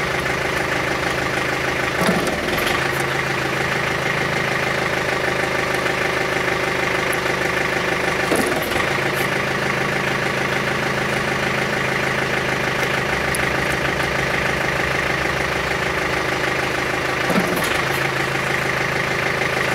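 Compact tractor-backhoe's diesel engine running steadily while the hydraulics cycle a newly installed bucket curl cylinder in and out to bleed air from it. The engine note changes briefly three times as the cylinder is worked.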